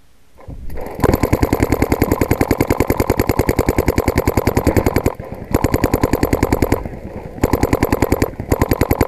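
Paintball marker firing rapid bursts, more than ten shots a second, heard close up from a camera mounted on its barrel. One long burst of about four seconds is followed by several shorter bursts with brief pauses between them.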